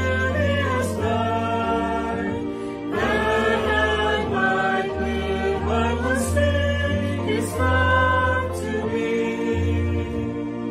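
Small mixed group of men's and women's voices singing a hymn in harmony, with low bass notes underneath.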